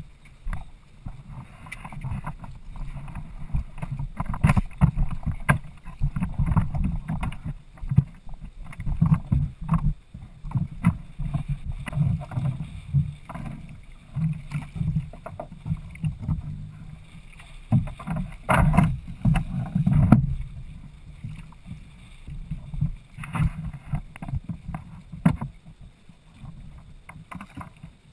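Gusty wind rumbling on the microphone of a camera mounted on a Hobie Adventure sailing kayak, with water slapping the hull and a few sharp knocks.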